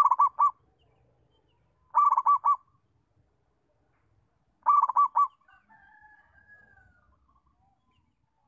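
Zebra dove (perkutut) cooing: three short bursts about two seconds apart, each a quick rolling run of about four notes.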